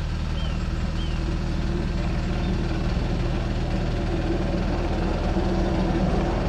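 Engine of a 7¼-inch gauge miniature railway locomotive running steadily with a low drone, and a higher droning tone that comes in about a second and a half in and grows stronger. A bird chirps twice near the start.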